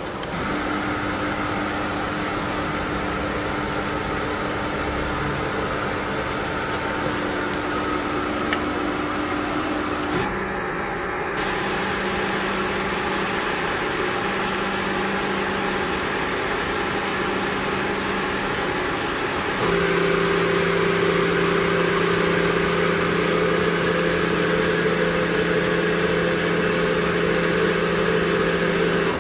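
Hardinge VMC-1000-II machining center's spindle running with a steady machine hum. The pitch changes in steps about ten seconds in and again about twenty seconds in, and the hum is louder after the second change.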